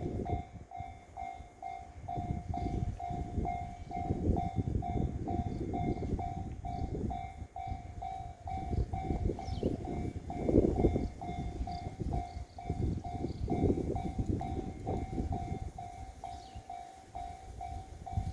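Japanese railway level-crossing warning bell ringing in a steady, evenly spaced pulse. Strong wind buffets the microphone in irregular gusts underneath.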